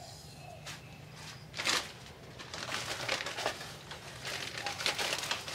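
Irregular bursts of dry rustling and crackling, the loudest about a second and a half in.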